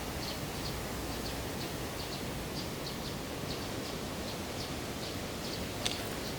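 Outdoor ambience: a steady hiss with a short, high chirp repeating about three times a second, and a single click near the end.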